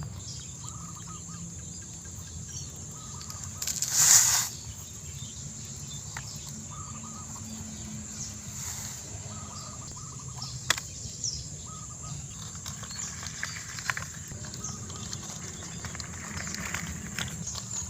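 Small electric motors of a toy RC excavator and truck whining in short spurts over a steady low hum, with a loud rushing burst about four seconds in and scattered ticks.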